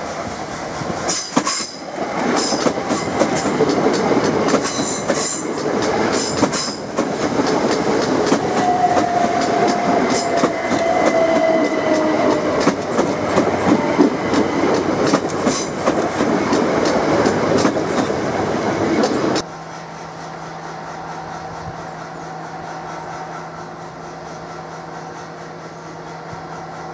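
Class 377 Electrostar electric multiple unit running close past, wheels clicking over the rails, with a whine that falls in pitch midway. About two thirds through the sound drops suddenly to a quieter steady hum as another Class 377 approaches slowly.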